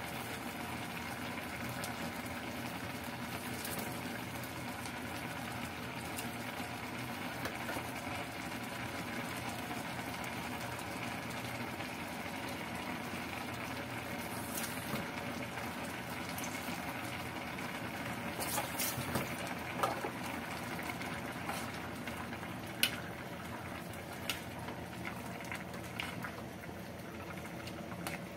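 Pot of cassava-leaf and coconut-milk stew simmering and bubbling on the stove, its coconut cream just added, over a steady hum. A few light clicks come in the second half.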